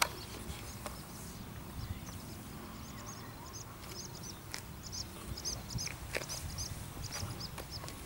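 Small bird chirping: short, high-pitched double notes repeated about twice a second, starting about a second and a half in, over a low rumble.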